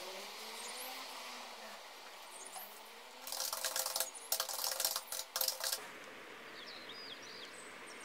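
European hedgehog eating moist food from a plate: a run of wet clicking, smacking chewing sounds starting about three seconds in and lasting a couple of seconds.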